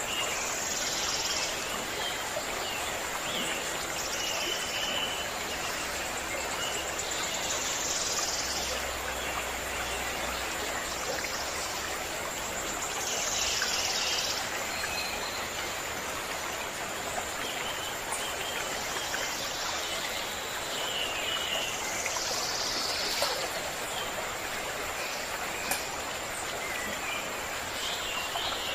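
Stream water running steadily, with birds singing short phrases every few seconds over it. A thin, steady high tone runs underneath.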